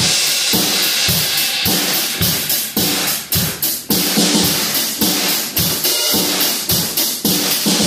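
Acoustic drum kit played in a steady beat: bass drum and snare strokes under a continuous wash of cymbals.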